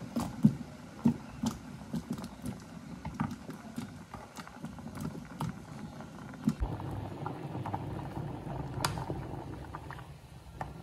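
Cubed potatoes dropping from a bowl into a pot of boiling water: a quick run of plops and splashes. After about six and a half seconds the water bubbles steadily at a rolling boil, with one sharp knock near the end.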